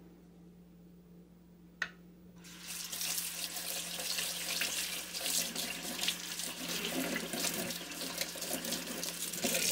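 Kitchen faucet running into a sink, the water splashing over a metal spatula as it is rinsed of baking soda and soap. The water starts a little over two seconds in, just after a single click.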